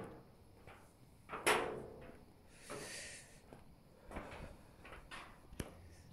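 Irregular knocks and clunks on a steel scaffold walkway of perforated metal planks, the loudest about a second and a half in, with a short hiss around three seconds and a sharp click near the end.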